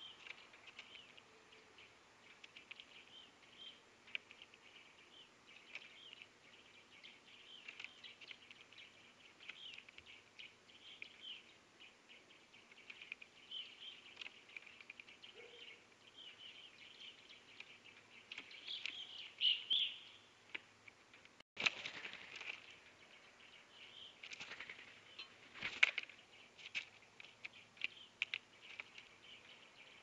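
Faint chirps and twitters of small songbirds, with scattered light taps and clicks from a blue jay pecking seed and peanuts on a platform feeder tray. A louder flurry of chirps comes a little past halfway.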